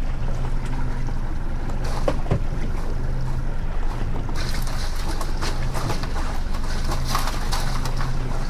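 Yamaha outboard motor running at trolling speed: a low steady hum that swells and eases every second or so, over wind and water noise, with a few light knocks.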